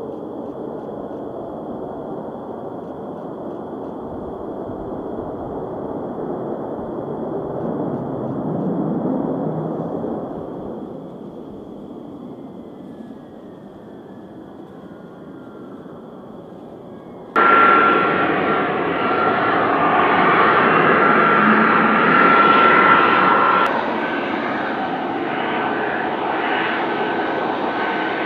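F-35B Lightning II jet noise swells and fades over the first ten seconds or so. It then jumps abruptly to a much louder, closer jet running with a steady high-pitched whine as the fighter moves along the runway.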